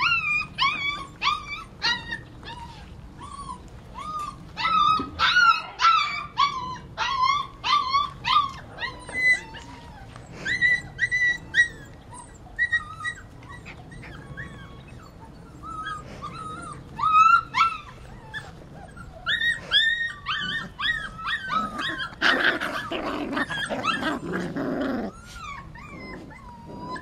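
Goldendoodle puppies yipping and whining in a quick run of short, high-pitched cries while they play-wrestle, the protest of a puppy telling a rougher playmate to stop. Near the end comes a harsher, rougher cry lasting about three seconds.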